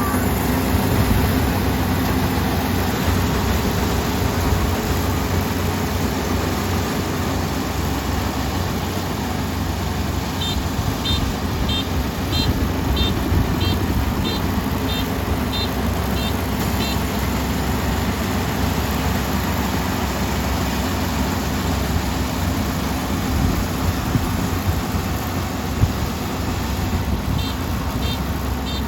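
Kubota ER470 combine harvester's engine running steadily, with a high warning beep repeating about twice a second for several seconds in the middle and again near the end.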